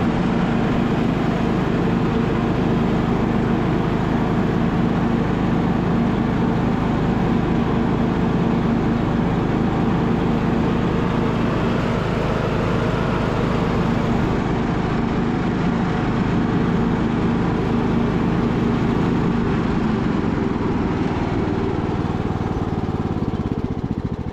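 Bolens (MTD) riding lawn mower's engine running steadily as the tractor drives across the lawn. The engine runs on its cleaned original carburetor after years abandoned. Its note eases off slightly near the end.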